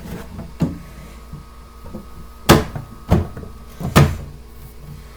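Knocks and thuds of the FlashForge Creator Pro 3D printer's top cover being fitted onto the printer: a light knock about half a second in, then loud knocks at about two and a half, three and four seconds.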